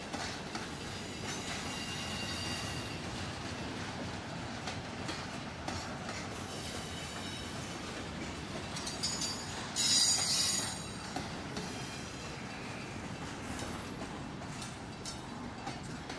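Double-stack intermodal freight cars rolling past on steel rails: a steady rumble of wheels, with thin high-pitched wheel squeals coming and going. About ten seconds in there is a louder, sharper squeal lasting under a second.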